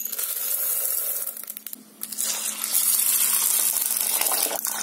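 Dry split peas poured from a cup into an aluminium pot, a light rattling hiss as they land on the peas already in it; after a short pause about two seconds in, a stream of water splashes steadily into the pot over the peas.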